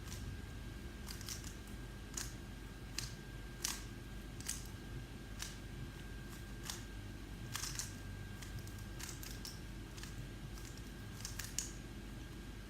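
A plastic 3x3 Rubik's cube being turned fast during a timed solve: irregular clusters of sharp clicks as the layers snap round, over a steady low hum.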